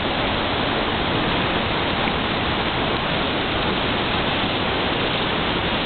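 Waterfall crashing, a steady loud rush of falling water.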